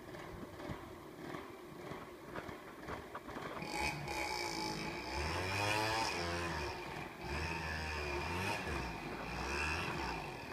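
Enduro dirt bike engine, faint at first, then revving up and down from about three and a half seconds in, its pitch rising and falling with repeated bursts of throttle.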